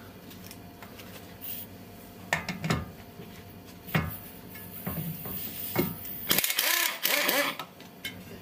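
Metal clinks and knocks of tools working on the BMW E36's front suspension behind the wheel hub, then a loud burst of about a second from an impact wrench undoing a bolt.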